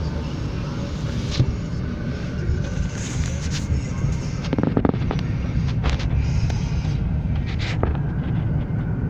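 Steady low road rumble of a moving car heard from inside the cabin, with a few short knocks and rattles along the way.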